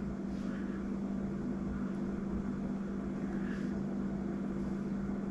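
Steady low background hum with faint noise, like an appliance or fan running in the room. A few very faint soft rustles are heard, with no distinct clicks.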